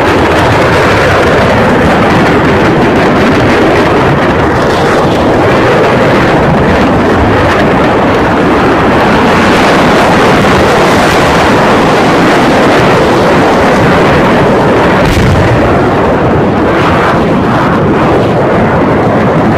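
Firecrackers exploding in a burning fireworks factory: a very loud, dense, unbroken crackle of bangs and pops, with a heavier bang about fifteen seconds in.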